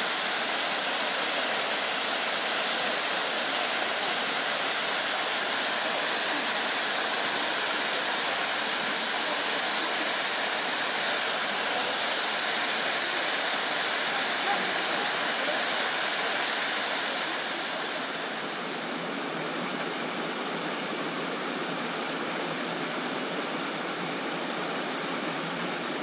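Waterfall: a steady rush of falling water. About 18 seconds in it turns a little softer and duller.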